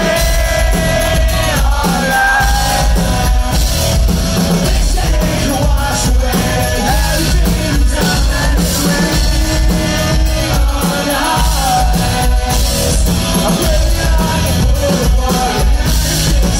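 Rock band playing live through a concert PA, with a lead singer's sung melody over a steady drum and bass beat.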